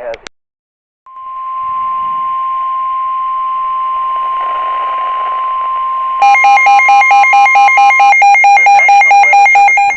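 NOAA Weather Radio's steady 1050 Hz warning alarm tone, one long tone over a static hiss, begins about a second in and signals that a new warning is about to be read. About six seconds in, a weather alert receiver's rapid beeping alarm starts on top of it and carries on after the tone stops.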